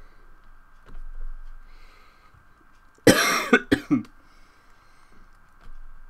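A person coughing: a burst about three seconds in, one longer rough cough followed quickly by two short ones.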